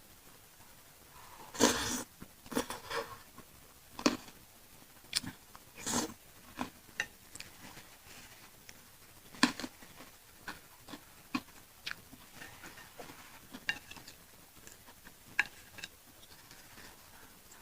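Close-miked chewing of pentol meatballs in chili sauce: wet chewing and lip-smacking clicks, scattered and irregular, with a few louder bursts about two, six and nine and a half seconds in.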